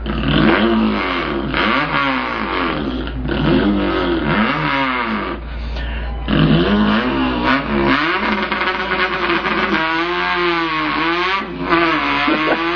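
A man's voice imitating an import car's engine: a revving sound that climbs in pitch and drops back about five times, like a car accelerating through its gears, then holds a wavering, steady pitch near the end.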